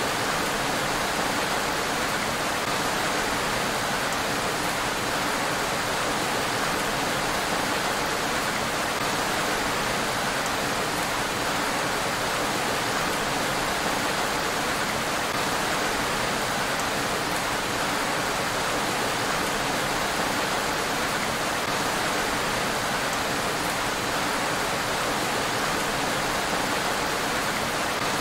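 Steady heavy rain falling on a road, an even hiss.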